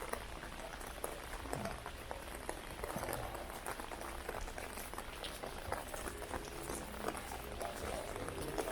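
Heavy rain: a steady hiss of falling water with many sharp, close drop hits.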